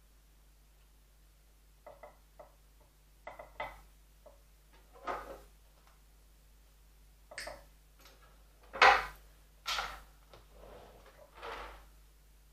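Hands working on a small bonsai fig: scattered light clicks and rustles of leaves, branches and training wire being handled, getting busier in the second half, with the loudest rustle about nine seconds in.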